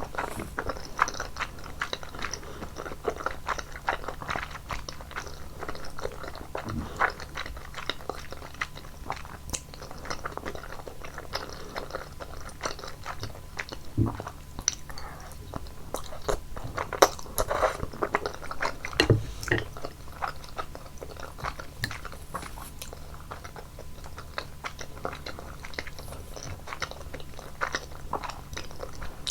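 Close-miked chewing of basil-cream Buldak udon noodles: a dense, irregular run of wet mouth clicks and smacks, a few louder near the middle.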